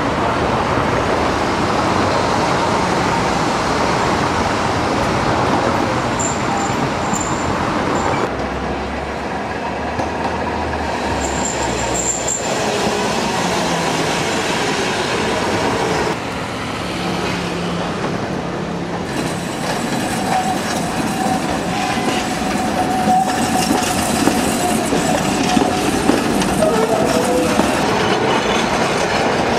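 Classic four-axle Peter Witt-type Milan tram running past on street track, its wheels and running gear clattering on the rails, with brief high-pitched wheel squeals twice in the first half.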